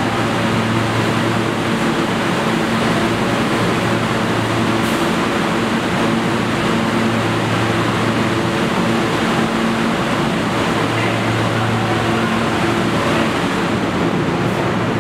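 A subway train stands still in the station with its air-conditioning and on-board equipment running: a loud, steady noise under a low hum that swells and fades every few seconds.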